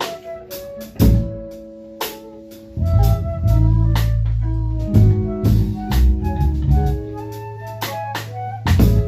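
Live improvised band music: sharp drum kit hits over held low bass notes and a slow line of higher sustained melodic notes.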